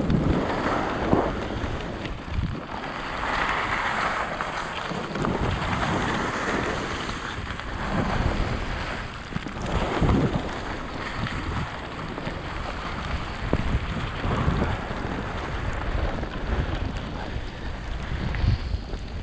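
Skis scraping and hissing over groomed snow on a downhill run, the rush swelling and fading several times, with wind buffeting the microphone.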